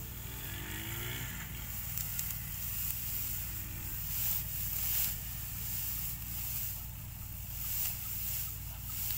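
Dry wheat straw rustling in swells as a cut sheaf is gathered and pressed together by hand, over a steady low drone. A brief rising tone sounds in the first second or so.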